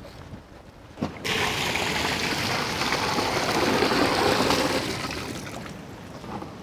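Water gushing in a strong stream into a metal basin of skinned rabbit carcasses, rinsing the meat. It starts suddenly about a second in and tapers off near the end.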